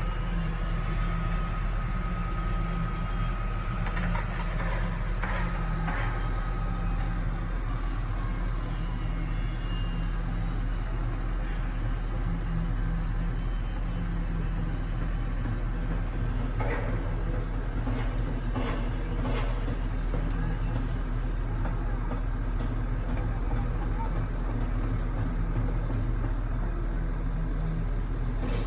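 Diesel engine of a truck-mounted concrete pump running steadily under load, with a few metallic clanks about four to six seconds in and again around seventeen to nineteen seconds in.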